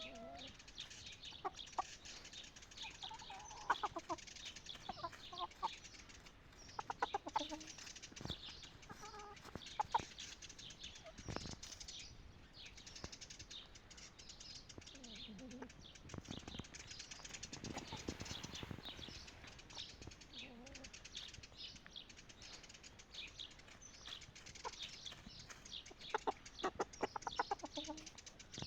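Chickens clucking on and off, with many short high chirps among the clucks.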